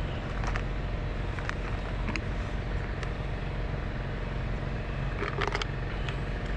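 A small geocache container being handled and opened, with a few light clicks and rattles about half a second, two seconds and five seconds in, over a steady low mechanical hum.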